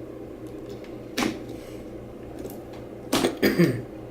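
Plastic parts of a battery electrolyte pack being handled: a single knock about a second in, then a short burst of clattering near the end.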